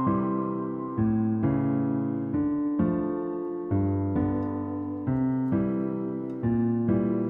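Background music: a soft electric piano playing slow, sustained chords that change about once a second.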